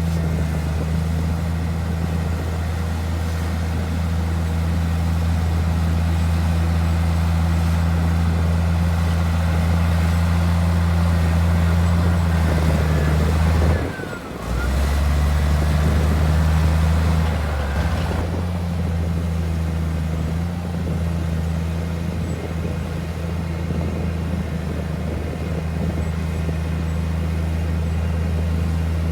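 Heavy diesel engine of earthmoving machinery running steadily with a deep, even hum. It drops out briefly about halfway through, then carries on.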